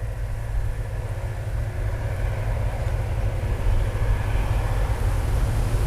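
Distant vehicle noise: a steady low rumble with a rushing sound that slowly grows louder.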